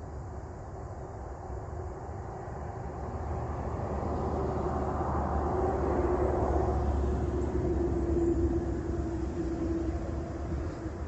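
A vehicle passing at a distance: a low rumble with a steady hum that grows louder, peaks about six to eight seconds in, then fades away.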